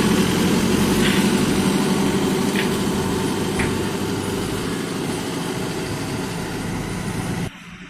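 JCB 3DX backhoe loader's diesel engine running steadily and slowly fading, with a few brief higher-pitched sounds over it; the sound cuts off abruptly near the end.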